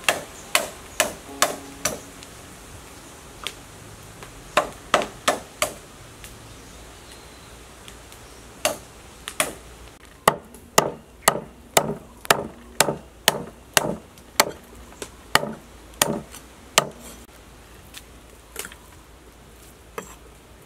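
Knife chopping bone-in pork ribs on a wooden chopping board: sharp strikes about two a second, in runs broken by short pauses, with the longest run in the second half.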